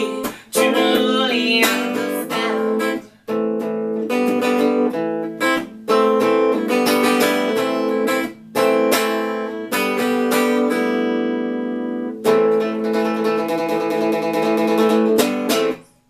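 Hollow-body Epiphone archtop electric guitar strumming chords in the song's closing bars. There are short breaks between phrases and one chord left to ring and fade around ten seconds in. A last run of strums stops just before the end.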